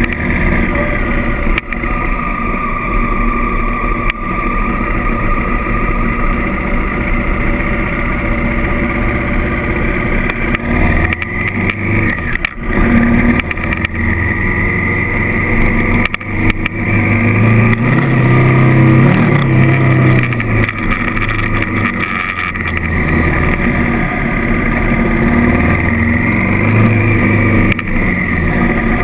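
Honda CRF1000L Africa Twin's parallel-twin engine running as the bike is ridden on a gravel track, the engine note rising and falling with the throttle and dropping away briefly a couple of times.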